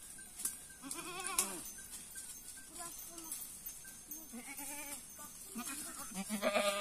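Goats bleating: three wavering bleats, the loudest near the end.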